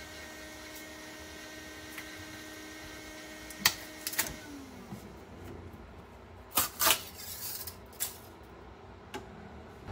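Flexible spring-steel build plate pulled off a 3D printer's magnetic bed and flexed to pop the print free: a handful of sharp metallic clicks and clacks, loudest about three and a half and six and a half seconds in. A steady hum with a faint whine underneath stops about four seconds in.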